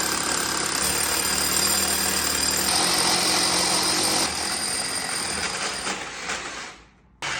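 Electric core drill boring through a concrete slab: a steady motor whine over the grind of the bit, winding down and stopping about a second before the end.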